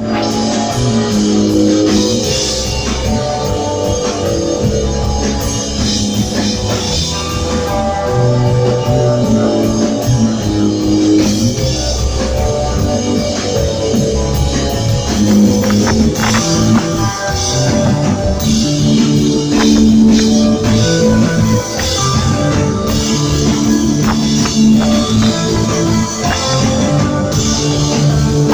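Rock music without vocals: electric guitar playing sustained chords and notes over a drum kit.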